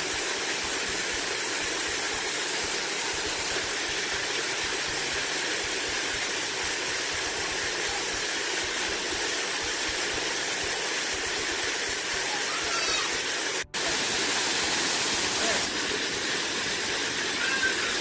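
Small waterfall pouring over rocks into a pool: a steady rushing of water that cuts out for an instant about fourteen seconds in.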